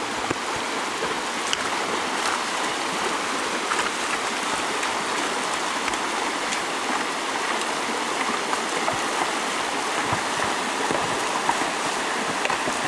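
Steady rushing of a shallow river flowing over a stony bed.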